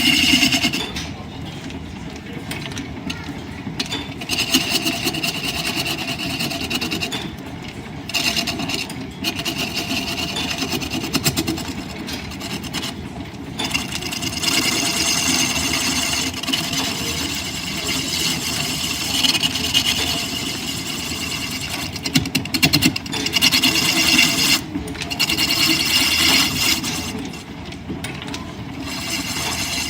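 Line-shaft driven wood lathe running steadily while a turning tool cuts the spinning wood with a hissing scrape; the cutting stops briefly several times as the tool is lifted off.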